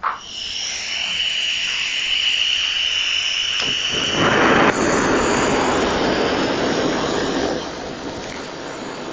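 Gas torch lit with a sudden start, then its flame hissing steadily with a high whistle; after about four and a half seconds the hiss gives way to a fuller roar, which settles a little lower near the end, as the torch heats the steel frame for silver soldering.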